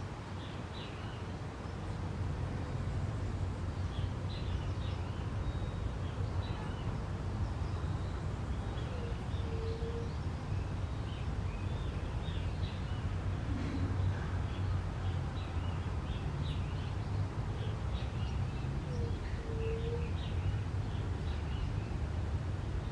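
Backyard ambience of small birds chirping in short high notes throughout, over a steady low rumble. A soft, low two-note hoot comes twice, about ten seconds apart.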